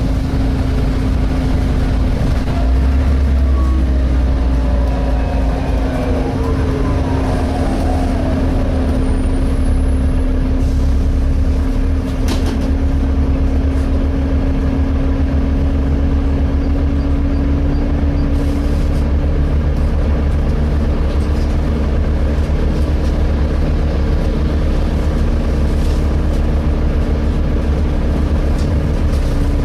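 Interior sound of a Volvo B7TL double-decker bus under way: the engine's low rumble, which grows louder about three seconds in, with the engine cooling fan's steady hoover-like whine over it, rising slightly in pitch.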